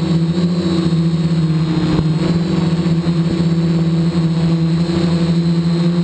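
Quadcopter's electric motors and propellers buzzing steadily at a constant pitch, heard close up from a camera mounted on its frame.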